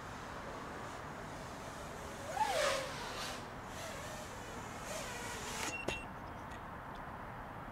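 Emax Buzz FPV quadcopter flying back in over the grass, its motor and propeller buzz swelling briefly with a rising-then-falling pitch about two and a half seconds in. A sharp tap near six seconds marks it touching down and disarming.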